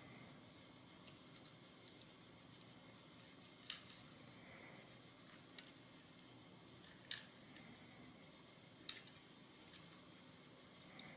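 Faint, scattered clicks and ticks of small machine screws and nuts being handled and threaded by fingers onto a robot-car chassis plate, with three sharper clicks spaced a few seconds apart, over near-silent room tone.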